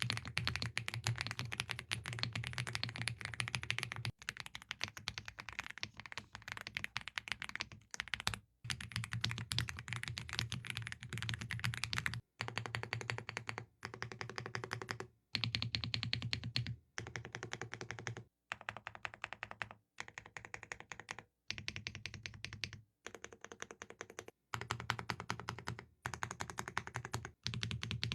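Fast typing on an AULA F75 mechanical keyboard with creamy-sounding keys: a dense run of keystrokes. It comes in stretches of a few seconds, each cut off abruptly.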